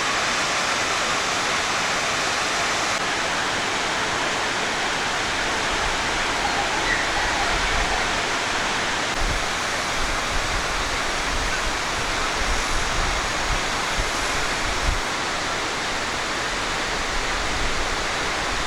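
Hukou Waterfall on the Yellow River: a huge volume of muddy river water crashing down into a narrow gorge, making a steady, dense roar like ten thousand galloping horses.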